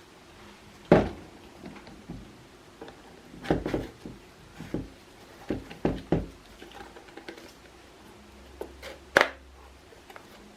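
Scattered knocks and clicks of objects being handled, a dozen or so irregular hits, with the sharpest about a second in and another near the end.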